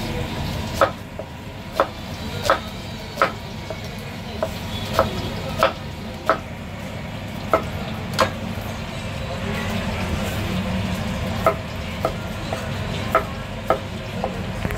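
Cleaver blade knocking on a wooden chopping board while onion and green capsicum are cut into chunks: irregular sharp knocks about one or two a second, pausing for a couple of seconds past the middle, over a steady low rumble.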